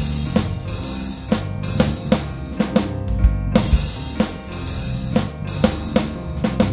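Instrumental music with a steady drum-kit beat: kick drum and snare hits over sustained pitched tones, with a deep bass thump every few seconds.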